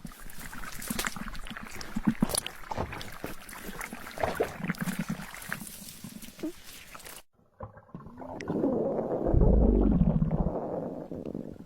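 A long, loud, low belch about eight and a half seconds in, just after a short silence. Before it comes a jumble of clicks and short noises.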